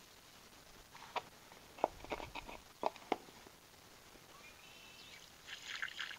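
A handful of sharp clicks and knocks between one and three seconds in, from the plastic funnel set in a spark plug hole as the pour can is handled against it. Near the end comes a brief splashing trickle of penetrating oil pouring through the funnel.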